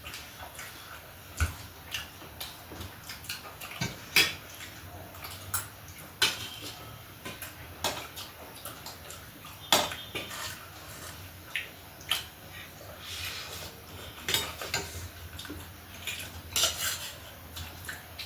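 Cutlery clinking and scraping against dishes in irregular, scattered clicks and knocks.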